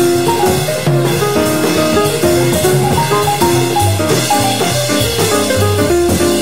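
Jazz recording playing, with drums and a walking bass line under a melody of short pitched notes.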